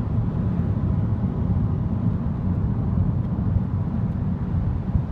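Steady low rumble of road and engine noise inside a car's cabin while it drives along a highway.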